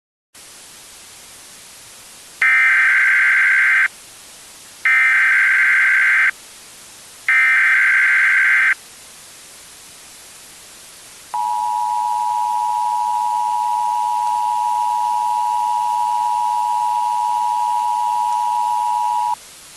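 Emergency Alert System activation: a hiss of static, then three bursts of SAME header data tones, each about a second and a half long, then the two-tone EAS attention signal held steady for about eight seconds.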